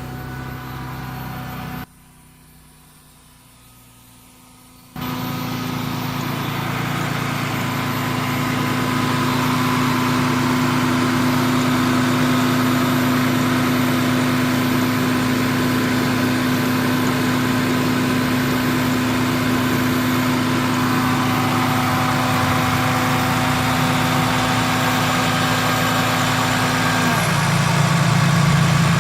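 1996 Ford Taurus engine running at idle, with a steady humming drone over it. The sound drops away for about three seconds near the start. Near the end the drone stops, leaving a lower, rougher engine note.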